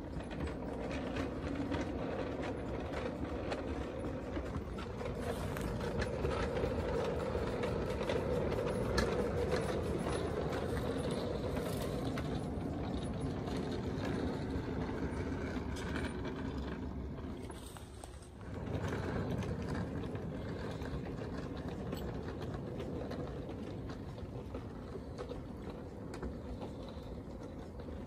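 5-inch gauge live steam locomotive running with a train, steam exhaust mixed with the clatter of wheels on the track. The sound dips briefly about two-thirds of the way through and then picks up again.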